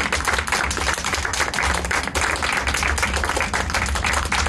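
A small group clapping their hands continuously, with a low hum underneath.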